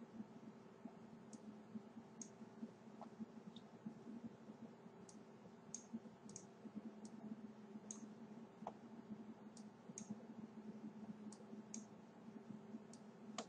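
Faint computer mouse clicks, about fifteen, short and irregularly spaced, over a low steady hum.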